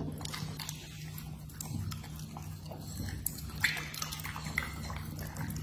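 A bully-breed dog chewing a chunk of raw meat, with irregular clicking, smacking bites of its jaws.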